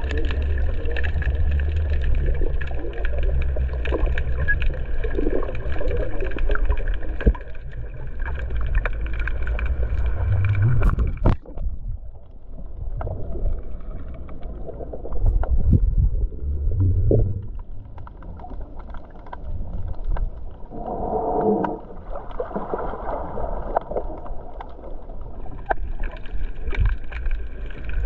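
Muffled underwater noise picked up by a submerged camera: a steady low rumble with water movement against the housing. It breaks off sharply about eleven seconds in and goes on quieter and more uneven.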